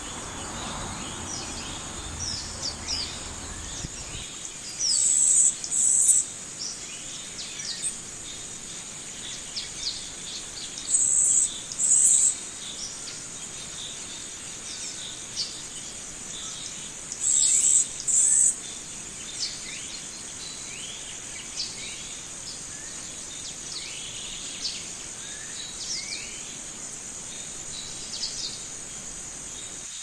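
Birds chirping and calling over a steady, high insect drone, with three pairs of louder, high buzzing bursts.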